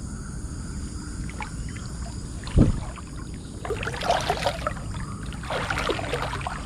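A hand splashing and sloshing in shallow river water, in repeated splashes from about halfway through. Before it, a single low thump about two and a half seconds in is the loudest sound.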